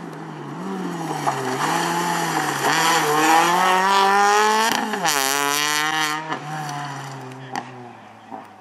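Peugeot 206 rally car's engine revving hard and changing gear as it drives past at speed. It grows louder as it approaches, its pitch drops sharply as it passes about five seconds in, then it fades as it drives away.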